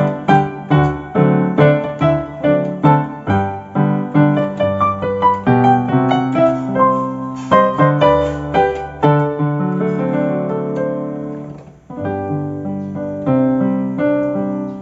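Yamaha PSR-550 keyboard played with a piano voice: a stream of melody notes over held bass chords, breaking off briefly about twelve seconds in before carrying on. The keys that had been dead are all sounding again after the repair.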